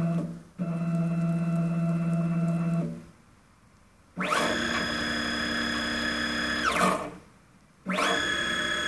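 Stepper motor driving a 1605 ballscrew and ballnut back and forth. First a steady lower-pitched hum that breaks off briefly half a second in and stops near three seconds in. After a pause come two fast runs, each rising quickly to a steady high whine for about two seconds and falling away as the nut decelerates and stops.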